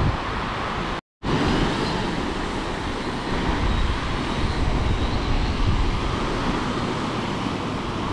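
Wind buffeting the microphone over breaking surf, a steady rumbling noise that cuts out completely for a moment about a second in. A faint propeller whine from a quadcopter fishing drone sits under it as the drone comes down to land on the sand.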